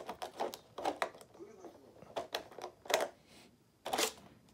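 Irregular clicks and plastic knocks of a Traxxas 1/16 scale RC truck's body shell and body clips being handled and pulled off the chassis by hand, with faint voices in the background.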